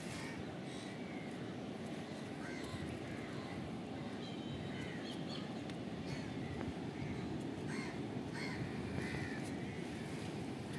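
Crows cawing, with short bird calls scattered throughout, over a steady low rushing background noise.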